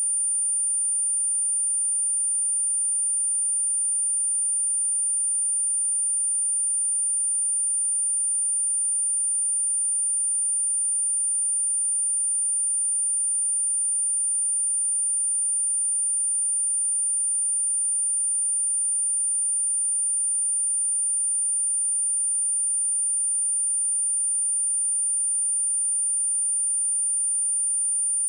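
A steady, high-pitched pure sine tone of 9218 Hz, held at one pitch and level throughout: a speaker test tone.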